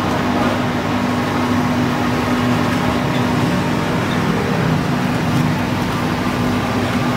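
Steady roar of a gas wok burner and oil deep-frying chive cakes, under a constant low hum.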